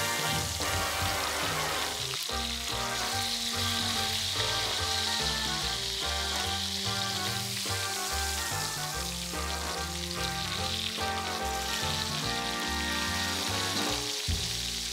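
New York strip steaks searing on their edges in hot canola oil in a cast iron skillet, the oil sizzling steadily. Background music plays underneath.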